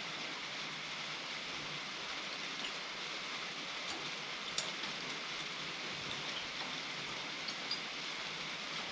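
Steady hissing background noise, with a faint click about four and a half seconds in.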